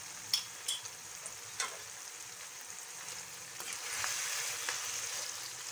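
Mutton karahi sizzling in oil in a wok on high heat, its yogurt and tomato liquid cooked off, with a few sharp clicks in the first two seconds. From about three and a half seconds a wooden spatula stirs the meat and chillies, and the sizzle grows louder.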